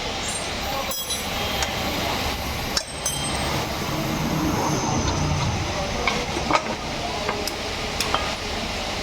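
Metal tools and engine parts clinking now and then during motorcycle engine disassembly, over a steady background noise.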